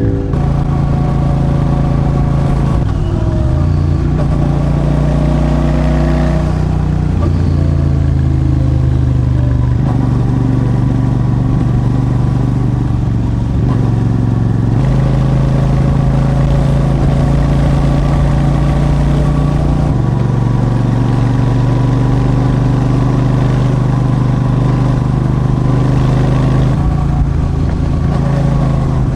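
Royal Enfield Super Meteor 650's 648 cc parallel-twin engine running under way on the road. Its pitch holds steady for several seconds at a time and steps to a new level a few times as the rider changes gear or throttle.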